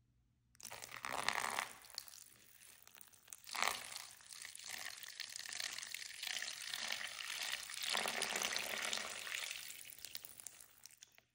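A thin stream of coffee pouring into a paper bowl over a slice of meatloaf, the liquid pooling as the bowl fills. The pour starts about half a second in, surges louder twice in the first few seconds, and stops shortly before the end.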